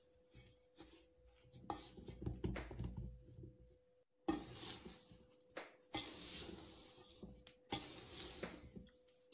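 A spatula scraping and stirring a dry, gritty mix of sugar and roasted semolina around a large aluminium pot, in several separate strokes each about a second long.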